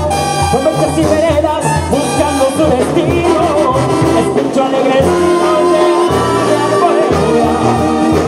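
Latin American music with a pulsing bass line and a melody over it.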